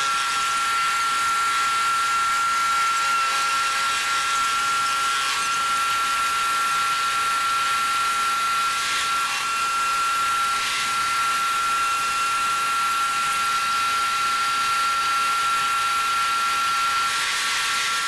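Helicopter cabin noise in flight: a steady high-pitched whine over a constant rushing sound.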